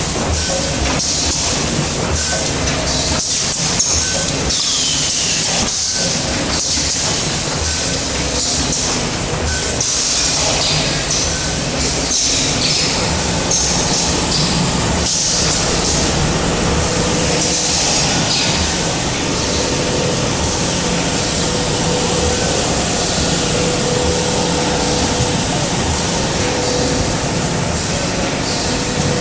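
Automatic carousel packaging and shrink-wrap machine running: continuous mechanical noise with many short clicks and clatter over a steady high hiss.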